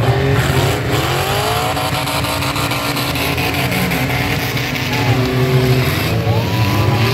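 Demolition-derby pickup truck engines running and revving hard, their pitch rising in the first couple of seconds and again near the end, over a steady crowd din.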